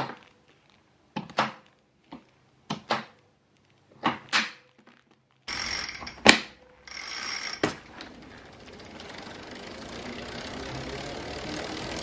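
Road-shoe cleats clicking into and out of PowerTap P1 pedals: about eight sharp snaps over the first few seconds, some with a short metallic ring. Then a steady whirr that slowly grows louder, with two more clicks.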